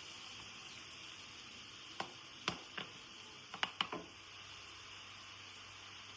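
A faint steady hiss, with a handful of light, sharp clicks or clinks between about two and four seconds in.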